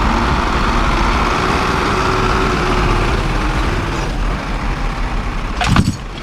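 Heavy truck's diesel engine running steadily, with a short, sharp, loud knock near the end.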